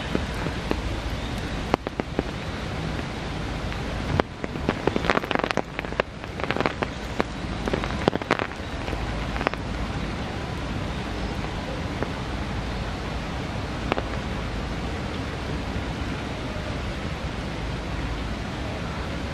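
Steady rain falling, an even hiss, with a flurry of louder, irregular taps between about four and nine seconds in.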